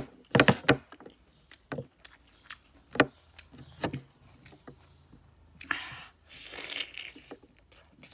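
Close-up eating sounds of a person eating rice and pork curry by hand: short wet smacks and clicks of chewing, with fingers working food on the plate, and a longer hissing noise about six seconds in.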